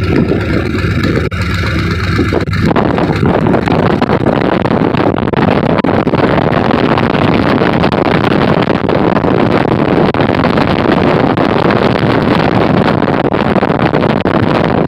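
Cessna Skymaster's push-pull twin piston engines running steadily as it taxis during a taxi test, heard together with wind buffeting the microphone.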